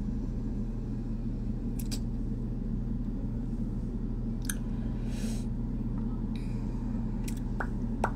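Steady low room hum with a few short, faint clicks scattered through it.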